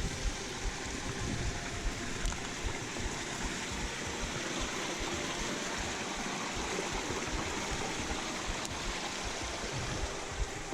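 Mountain stream rushing steadily over rocks, with a few low thuds.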